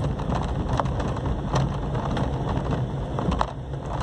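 Car driving slowly over a potholed dirt road, heard from inside the cabin: a steady low rumble of engine and tyres with scattered knocks and rattles as the car hits bumps.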